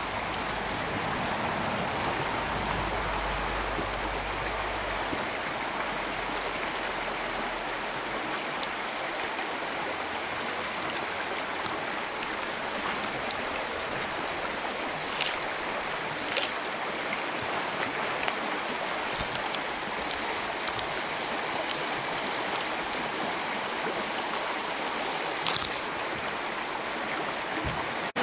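Steady rush of river water flowing over a rocky riffle. A low rumble sits under it in the first few seconds, and a few brief sharp clicks stand out near the middle and again near the end.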